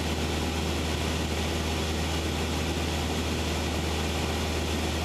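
Cessna 172's engine and propeller droning steadily in level cruise, heard inside the cabin, with an even hiss over a deep steady hum.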